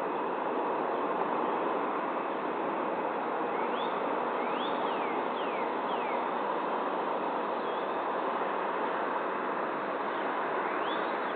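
Steady outdoor background noise with a few short whistled bird calls that slide in pitch, a cluster about four to six seconds in and another near the end.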